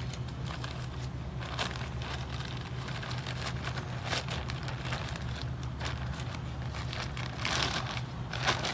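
Plastic bag of shredded cedar mulch crinkling and crackling as gloved hands pull at its top to tear it open, with scattered crackles that grow denser near the end. A steady low hum runs underneath.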